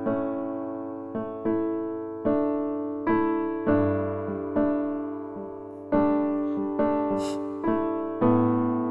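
Background music: slow, gentle piano, a note or chord struck every half second to second and left to ring and fade.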